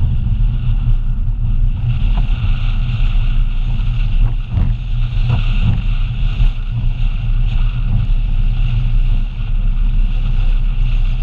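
Honda CRX engine running hard as the car is driven at speed on an autocross course: a loud, steady low drone with a higher steady hiss on top.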